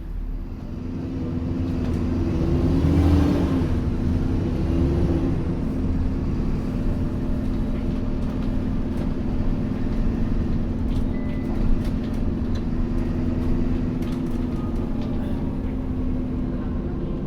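Alexander Dennis Enviro400 Trident double-decker bus heard from on board, its diesel engine rising in pitch and loudness over the first few seconds, then running steadily. A single knock sounds about two-thirds of the way through.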